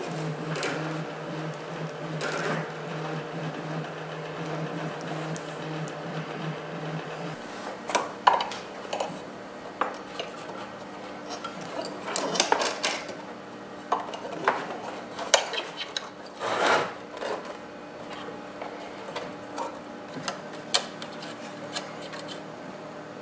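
Hands working wires and small plastic parts around a 3D printer's aluminium frame: scattered clicks, taps and rustles, the loudest clusters about 8, 12 to 13 and 17 seconds in. A steady low hum runs under the first seven seconds and then stops.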